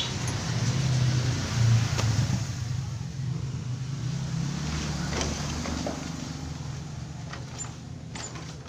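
Bored-up Honda Astrea Grand's single-cylinder four-stroke engine idling steadily, a little louder in the first couple of seconds, running with a freshly fitted oil cooler while its oil circulation is checked.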